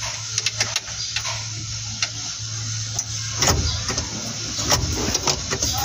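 Irregular small clicks and taps of hand work at a brake master cylinder and its line fittings, with a few louder knocks a little over halfway through, over a steady low hum.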